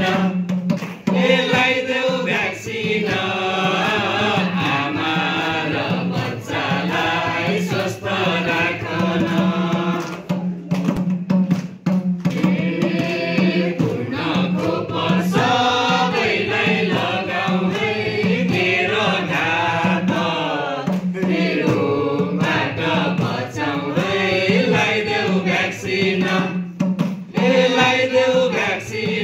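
A mixed group of men and women singing a Nepali vaccination-awareness song together into microphones, over a steady low tone.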